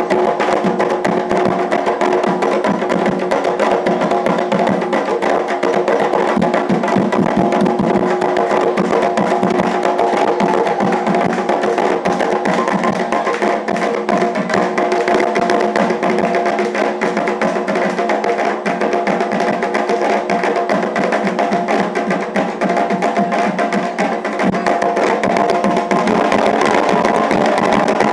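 Afro-Brazilian ritual drumming: hand drums and a sharp struck percussion instrument playing a fast, continuous rhythm.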